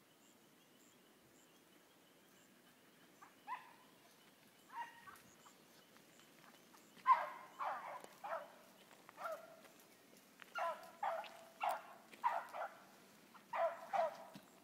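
Hunting hounds barking on a rabbit's trail: two single barks, then from about seven seconds in a string of about a dozen in quick bunches.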